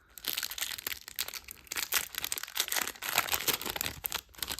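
Foil trading-card booster pack wrapper crinkling and tearing as it is opened by hand: a dense, continuous run of sharp crackles.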